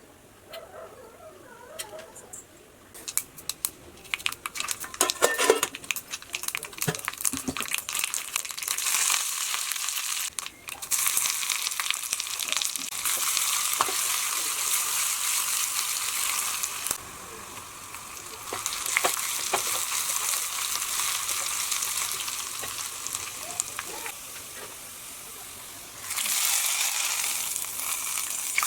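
Food frying in hot oil in a pan. Sharp crackling pops come a few seconds in, then a steady sizzle that falls quieter for a while and gets louder again near the end.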